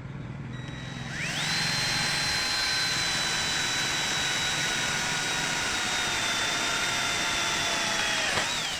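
Ken 12V cordless drill driver drilling through steel with a 6 mm bit. The motor whines up quickly about a second in and runs steadily for about seven seconds, then dips briefly and winds down as the trigger is let go.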